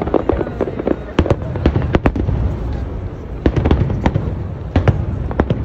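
Aerial firework shells bursting overhead: an irregular string of sharp bangs and crackles, several close together about two seconds in and again about three and a half seconds in.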